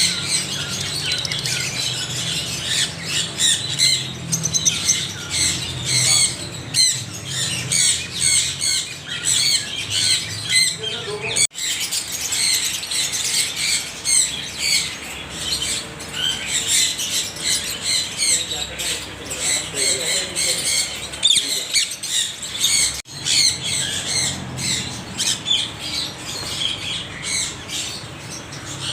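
A flock of parrots squawking and chattering together, many short calls overlapping in a steady, loud din, with two abrupt breaks where the sound cuts out for an instant.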